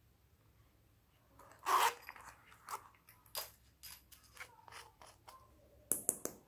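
A small plastic glitter pot being handled and opened: a string of plastic clicks, scrapes and rattles. The loudest comes about two seconds in, with another cluster near the end.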